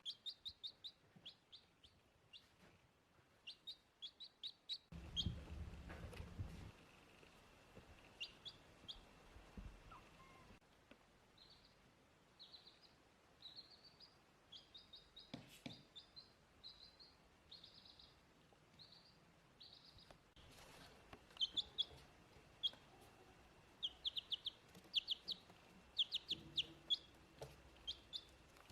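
Small birds chirping: short, high peeps repeated in quick runs, with a brief low rumble about five seconds in.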